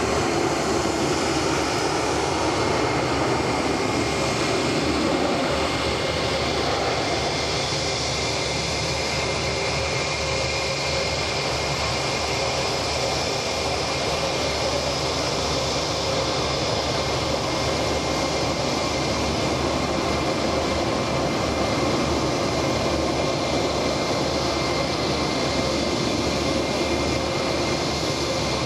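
Boeing 777-200ER jet engines during landing and rollout: a steady rushing engine noise with faint whining tones, slightly louder in the first few seconds.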